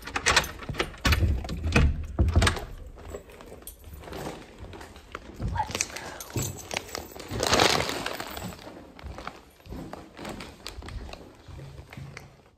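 Footsteps and handling knocks of a handheld phone and bag as someone walks down a stairway, irregular and scattered, with a louder rushing noise swelling about seven and a half seconds in.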